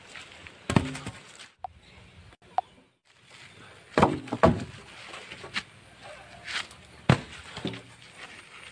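Long wooden logs being dropped onto a pile, knocking against each other in several heavy thuds, with the loudest pair about four seconds in.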